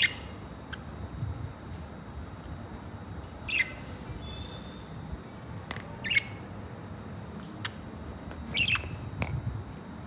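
Budgerigars chirping: a few short, sharp calls spaced a couple of seconds apart, with faint clicks in between.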